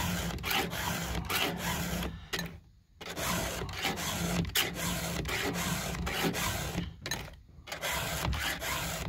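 A 7/32-inch round chainsaw file rasps across the cutting teeth of a Husqvarna 572 XP chain in quick, even strokes, about three a second, as the chain is sharpened by hand. The strokes pause briefly twice, a little after two seconds and again at about seven and a half seconds.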